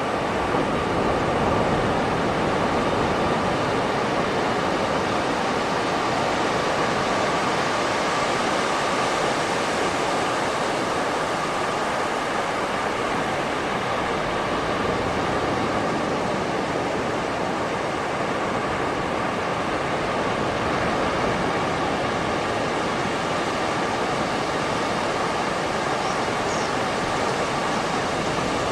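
Beach surf: a steady, unbroken wash of waves, with no distinct breakers standing out.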